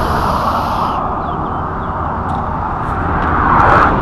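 Expressway traffic: the tyre and wind rush of passing vehicles, one fading away at the start and another swelling up to pass close near the end.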